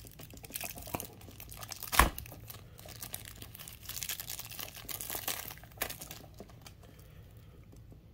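Thin clear plastic bag crinkling and tearing as it is pulled open by hand, with a sharp knock about two seconds in and a smaller click near six seconds. It goes quieter for the last couple of seconds.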